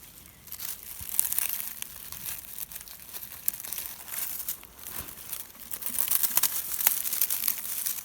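Irregular rustling and crinkling, full of small sharp crackles, louder from about half a second in.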